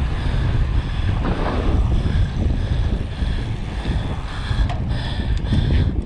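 Wind buffeting the microphone of a rider-mounted camera on a mountain bike speeding downhill, a steady heavy rumble. A few sharp clicks or rattles from the bike come near the end.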